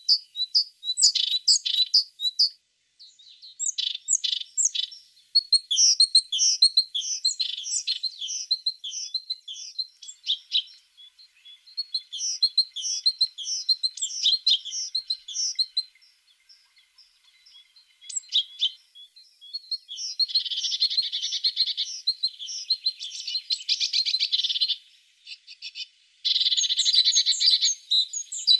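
Tits singing: a run of sharp, quick chirps and short whistled notes, then two long, dense, buzzing trills with a brief break between them near the end.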